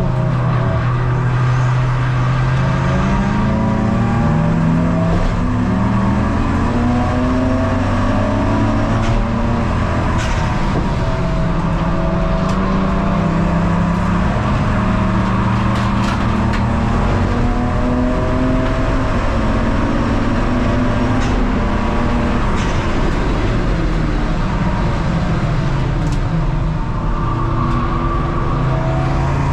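Ford Focus Mk2 race car's engine running hard on track, its pitch climbing and falling again and again as the revs rise and drop through gear changes.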